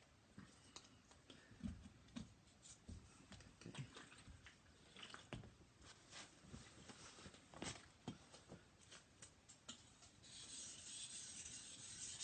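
Faint scattered clicks and knocks of a 400/1000 combination water stone being lifted out of its bamboo holder and set back in. About ten seconds in, a steady faint rasping starts: a kitchen knife edge stroked across the wet 1000-grit water stone.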